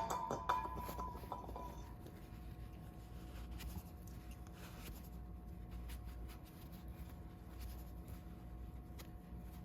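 A small metal brake part set down with a sharp clink that rings briefly, then faint handling and rubbing of the parts with a few light ticks.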